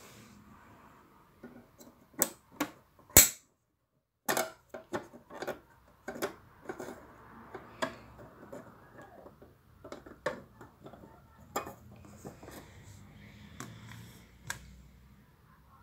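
Hands handling the plastic casing of a Philips reel-to-reel tape recorder and prying open a cover panel on its underside: a run of sharp plastic clicks and knocks, the loudest about three seconds in.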